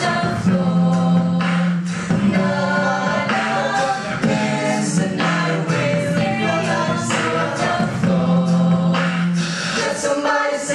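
Mixed a cappella vocal group singing in harmony through microphones, with held low bass notes under the upper voices and sharp vocal-percussion hits.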